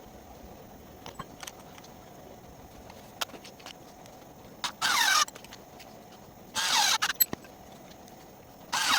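Cordless electric screwdriver's small motor whirring in three short bursts of about half a second each, with a few light clicks between them.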